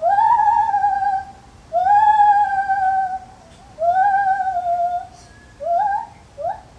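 Lar gibbon calling: three long hoots, each sweeping up and then sliding slowly down in pitch, followed near the end by shorter, quickly rising whoops.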